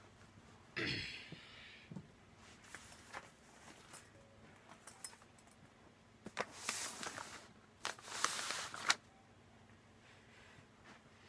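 Rustling and clicking of small objects being handled on a carpeted floor: a short rustle about a second in, scattered clicks, then two longer rustling stretches with sharp clicks between about six and nine seconds in.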